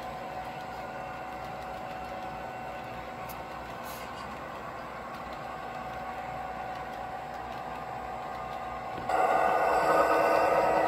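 Model container train running on model railroad track: a steady whir of wheels and motor with a faint clatter. About nine seconds in it turns suddenly much louder as the model Santa Fe F45 locomotive comes near.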